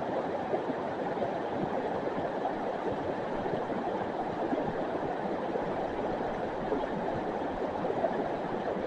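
River water rushing steadily over rocks below a bridge.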